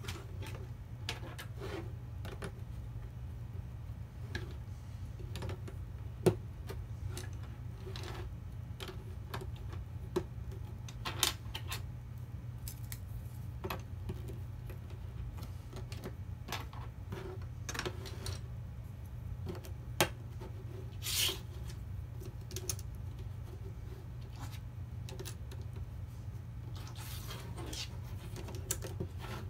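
Plastic Lego pieces clicking and knocking as they are handled and pressed together on a wooden table. Irregular small clicks, with sharper snaps about six seconds in and again about two-thirds of the way through.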